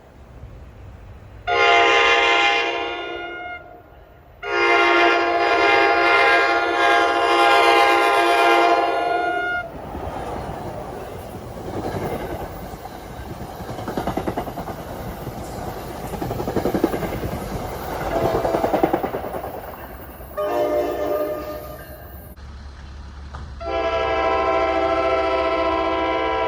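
A passenger train's multi-note air horn sounds a long blast and a longer one, then the train rolls past with wheels rumbling and clattering on the rail joints for about ten seconds. Near the end the horn gives a short blast and then a long one, making a long-long-short-long pattern.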